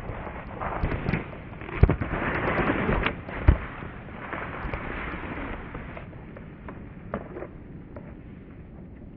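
Skis scraping over snow as a skier turns close by, with several sharp thumps, the loudest about two and three and a half seconds in; the scraping dies down to a steady faint rush after about six seconds.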